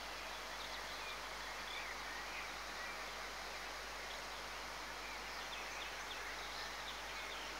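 A small rocky stream running steadily, with a few faint bird chirps scattered over it.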